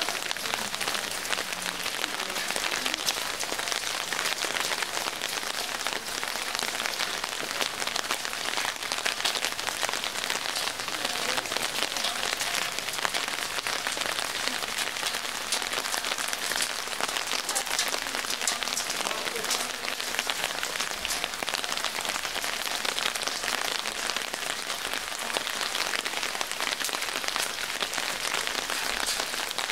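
Steady rain falling, a dense patter of raindrops that keeps up without a break.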